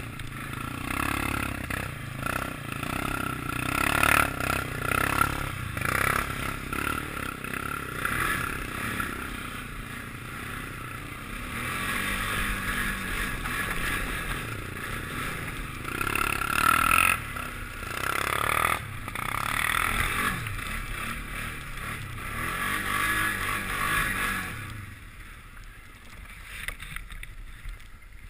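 ATV engine running as the quad drives along a muddy, snowy trail, rising in louder surges about four seconds in and again around seventeen seconds, and easing off near the end. The tyres work through wet mud and slush along the way.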